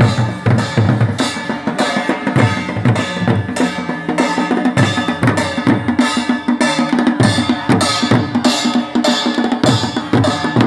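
Several large drums beaten with sticks in a fast, steady rhythm by a group of drummers, the strikes overlapping into a dense, continuous beat.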